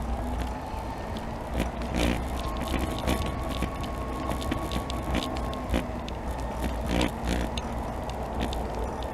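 Electric mobility scooter rolling along a paved path: a thin, steady electric-motor whine over the rumble of tyres on asphalt, with scattered knocks and rattles as it goes over bumps, the loudest about two seconds in and again about seven seconds in.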